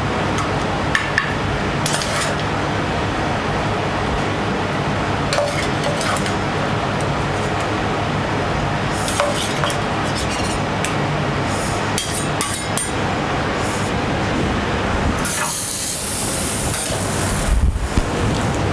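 Metal spatula clinking and scraping against a skillet and a serving plate as fish in clam sauce is spooned out, over a steady kitchen background hum. A loud hiss rises about fifteen seconds in and lasts a second or two.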